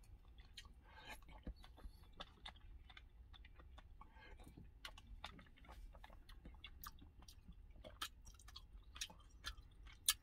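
A person chewing a mouthful of beef rice porridge up close, with faint, irregular wet mouth clicks and smacks.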